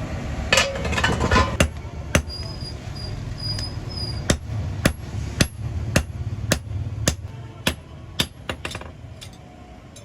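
Blacksmith's hammer striking metal while forging an axe head: a quick flurry of blows, then steady single blows about two a second that thin out near the end, over a low steady rumble.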